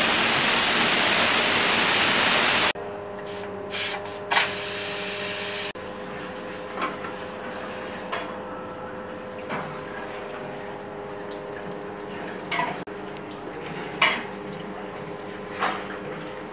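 Steam hissing loudly out of the weight valve of a large aluminium pressure cooker as its pressure is released, cutting off about three seconds in, then two shorter bursts of hiss. After that, a few metal clinks as the cooker lid is unlocked and lifted off.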